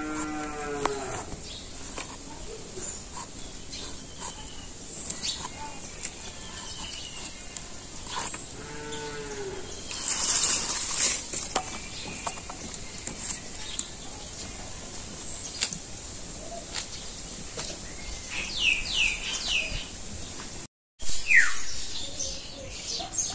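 A cow mooing twice, about eight seconds apart, each call drawn out for about a second and a half. A short burst of rustling noise comes about ten seconds in, and birds chirp near the end.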